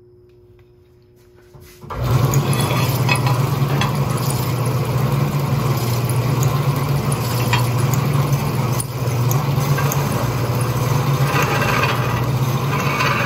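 Vertical bandsaw cutting through a steel mounting plate. Loud, steady sawing noise over a low hum begins about two seconds in and carries on evenly while the plate is fed into the blade.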